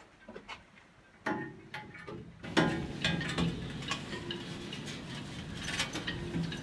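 Scattered light clicks and knocks. About two and a half seconds in, a steady background hiss comes in, with faint ticks through it.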